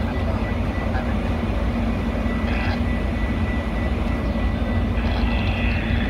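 Steady low drone of a diesel commuter train idling at the platform, with a constant hum over it. About five seconds in, a higher steady tone joins.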